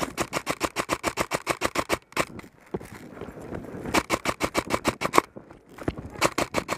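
Airsoft rifle firing on full auto, a fast even rattle of about eleven shots a second, in three bursts: a long one of about two seconds, one of about a second around four seconds in, and a short one near the end.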